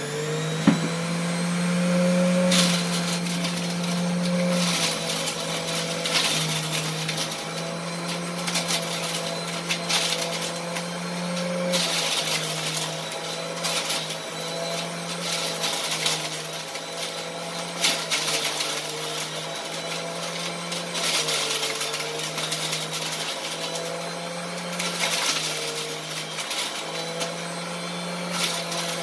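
Electric juicer motor running steadily as grapes are fed in, its hum dipping in pitch and recovering under each load, with repeated short bursts of grinding as the grapes are shredded for juice.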